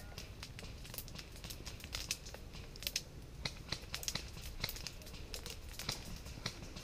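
Irregular rustling and crackling: many sharp clicks at uneven intervals, like dry leaves, brush or gear being brushed and trodden, over a low rumble.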